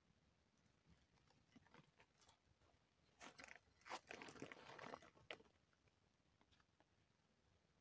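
Faint crunching and rustling of dry grass and gritty soil being disturbed by hand, in a burst from about three seconds in to just past five seconds, with near silence around it.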